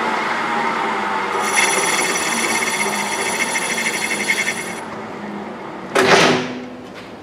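Metal lathe turning a cast aluminium blank while the cutting tool faces it, a steady cutting noise. For about three seconds in the middle a high ringing whine comes off the cut. The noise then falls away, broken by one short loud scrape about six seconds in.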